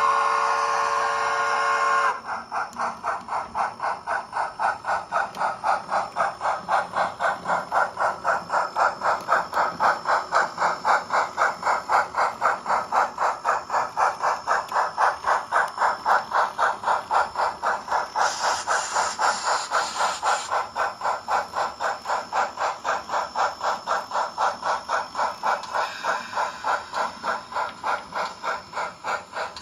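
Steam locomotive sound from an H0n3 Colorado & Southern Mogul model: a chime whistle blast that stops about two seconds in, then steady exhaust chuffs at about three a second. A burst of hiss joins for about two seconds midway, and the chuffs grow fainter near the end.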